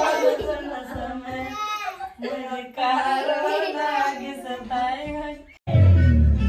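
A high voice singing a wavering melody, cut off abruptly about five and a half seconds in by loud music with heavy bass.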